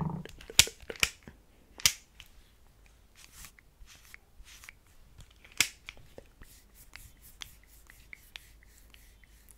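Tapping and handling of a plastic sunscreen stick: a few sharp clicks in the first two seconds and another near the middle, between lighter ticks and rustles as the stick is handled and glided over skin.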